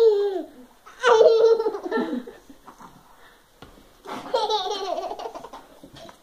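A young child laughing and squealing in three high-pitched bursts.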